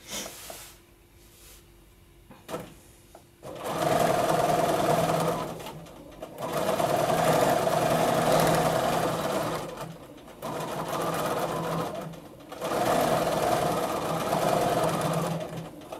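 Bernina domestic sewing machine stitching a free-motion quilt with its BSR stitch-regulator foot. It starts about three and a half seconds in, then stops and starts several times in short runs, with a softer stretch in the middle.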